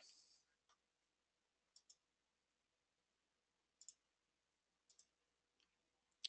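Near silence with a few faint, short computer clicks, then a sharper click near the end as the presentation slide advances.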